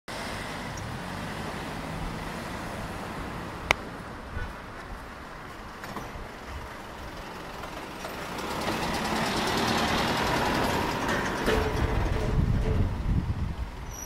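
Street traffic with a city bus passing close by: its engine and tyre noise swells from about halfway through, peaks near the end and then eases off. A single sharp click sounds a few seconds in.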